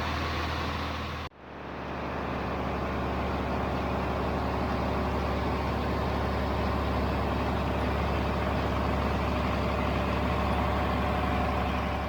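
Heavy farm engine running steadily under load. The sound cuts out abruptly about a second in, then comes back and builds up over the next second.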